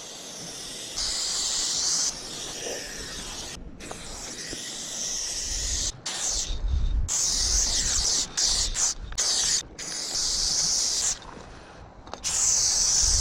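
Aerosol spray-paint can hissing in repeated bursts of a second or two, with short breaks between them, as graffiti is painted.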